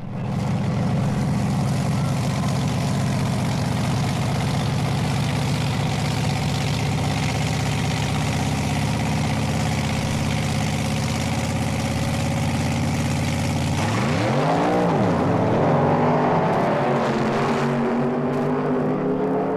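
An engine running steadily at idle. About fourteen seconds in it revs up and back down, then climbs again and holds at a higher pitch.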